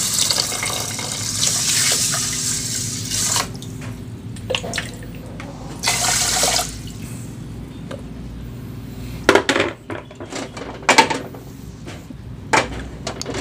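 Clean water poured into a pot of washed rice, a steady pour for about three seconds and another short pour about six seconds in. A few sharp knocks follow near the end.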